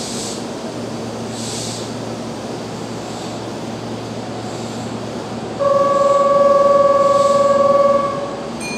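Keihan 6000-series electric train standing at a station platform with a steady low hum. About five and a half seconds in, a loud, steady, buzzer-like tone starts suddenly, holds for about two and a half seconds and stops: a departure signal before the doors close.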